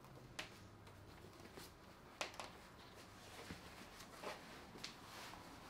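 Faint rustling and a few light clicks as a steel-boned corset is handled and wrapped around the waist. The sharpest click comes about two seconds in.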